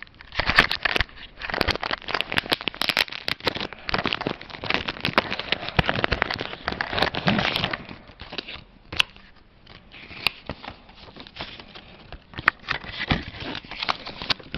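Paper inserts from a doll box being handled: crinkling and rustling, busy for the first half, then sparser crackles and taps.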